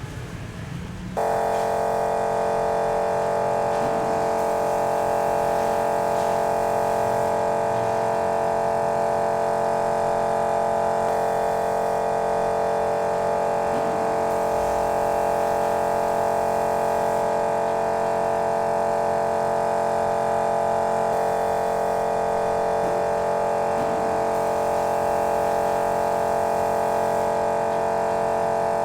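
Background music: a sustained droning chord of many steady tones that starts abruptly about a second in and holds unchanged.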